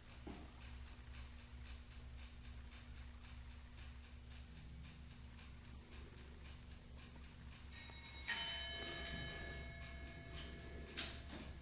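Chinese triple fusee bracket clock with a duplex escapement, ticking steadily. About eight seconds in its bell is struck and rings on as it fades, and it is struck again near the end: the clock beginning its strike.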